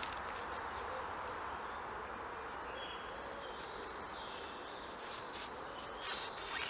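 Woodland birds chirping in short repeated notes over a steady background rush, with a few sharp knocks near the end.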